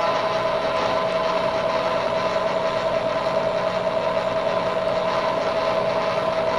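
Bridgeport milling machine running with a 1 3/4-inch annular cutter cleaning up the bottom of a hole in steel plate: a steady whine over a constant hiss.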